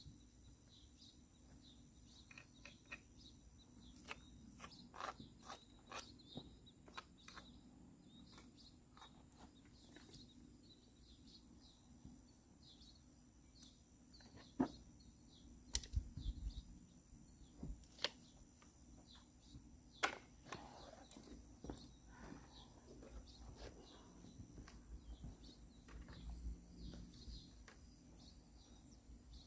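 Near silence: faint bird chirps and scattered light clicks and knocks.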